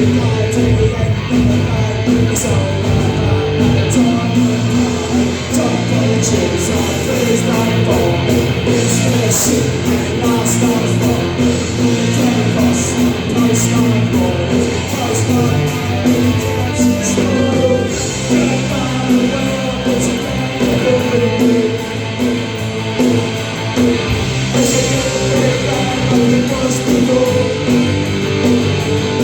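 Punk rock band playing live at full volume: electric guitars, bass and drums with regular cymbal hits.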